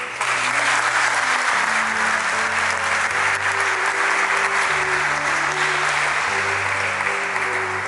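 Guests applauding at the end of a speech. The clapping starts all at once and eases off near the end, over soft background music.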